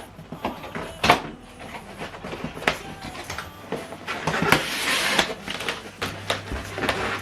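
Packaging being handled during an unboxing: a series of knocks and clicks with a longer scraping rustle about four to five and a half seconds in, over a steady low hum.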